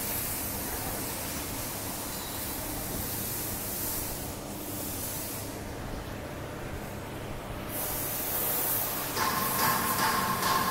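Steady hissing background noise of a machine workshop, with a brighter stretch of hiss and a faint steady tone near the end.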